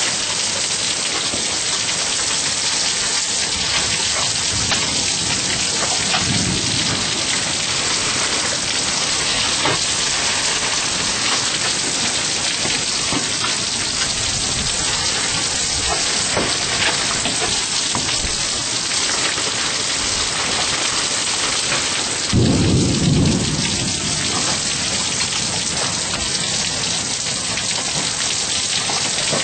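Hail and heavy rain pelting down in a dense, steady hiss, with scattered sharp ticks of hailstones striking. A brief low rumble comes about six seconds in, and a louder low boom of thunder lasting about a second comes about two-thirds of the way through.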